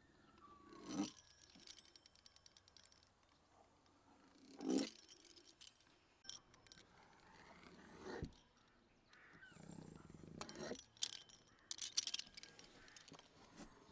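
Metal pastry wheel rolling through a thin sheet of dough on a wooden board: about four short scraping cutting strokes, with runs of fast, light metallic clicking from the wheel.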